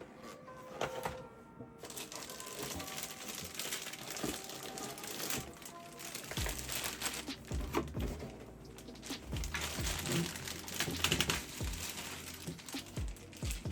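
Background music with a bass beat that comes in about halfway, over handling noise: crinkling, like plastic packaging, and scattered clicks.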